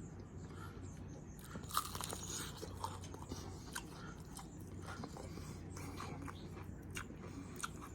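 Quiet chewing of crispy fried chicken, with scattered short crunches of the crust.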